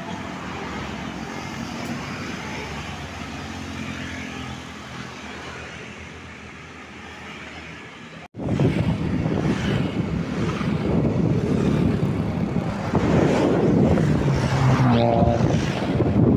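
Tour bus engine running and slowly fading away. About 8 seconds in it cuts off abruptly to louder road noise with wind buffeting the microphone, and a short pitched tone sounds near the end.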